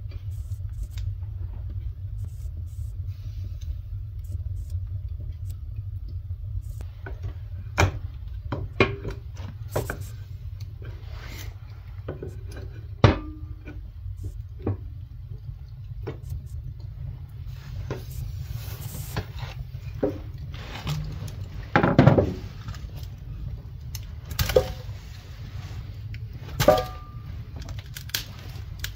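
Cookware and utensils being handled, with scattered knocks and clatter, a sharp one about halfway through and a heavier burst about three quarters in, over a steady low rumble.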